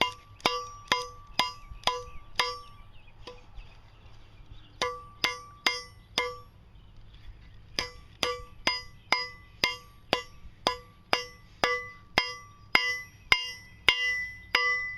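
Hand hammer striking quarter-inch square steel stock over the end of a railroad-track anvil, bending the hook's end down: steady blows about two a second, each with a bright ringing tone, with two short pauses of a second or two.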